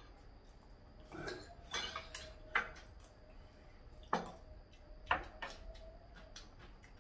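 Chopsticks and a spoon clinking against ceramic bowls and plates during a meal: about five separate clinks, the sharpest about two and a half seconds in.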